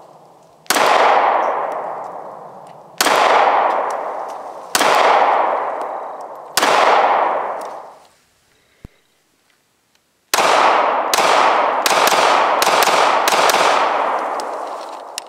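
9mm pistol shots from a Glock 43: four single shots about two seconds apart, each echoing away over a second or more. After a short silence comes a fast string of about eight shots.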